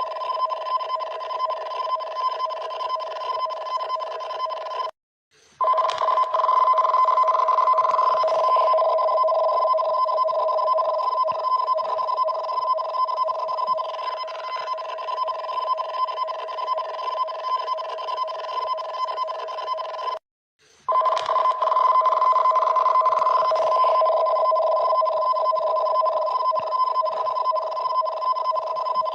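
Japanese emergency alert alarm signalling a tsunami warning: a loud two-tone electronic alarm. It cuts out briefly about five seconds in and again about twenty seconds in, then starts again each time.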